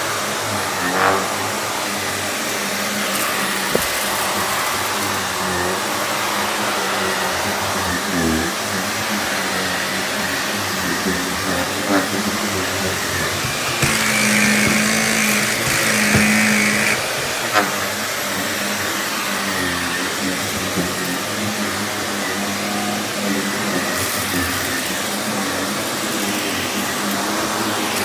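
Upright vacuum cleaner running steadily as it is pushed over a rug and hardwood floor. It gets louder and higher for a few seconds midway, and a few sharp clicks of light crunching debris being sucked up break through it.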